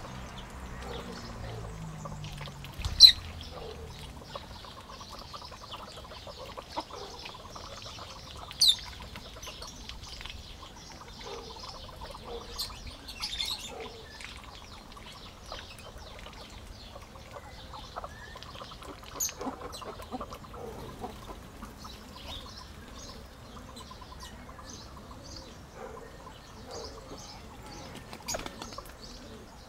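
Birds chirping in an aviary: scattered short, high chirps, with two loud sharp calls about three and nine seconds in, over a faint steady background.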